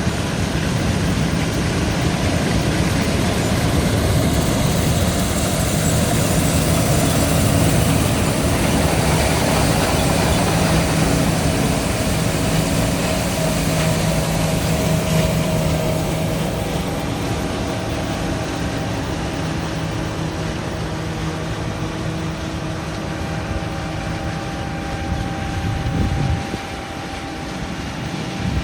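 John Deere S760 combine running steadily while harvesting soybeans: a steady engine drone with threshing-machinery noise over it. It eases slightly partway through, and there is a brief knock near the end.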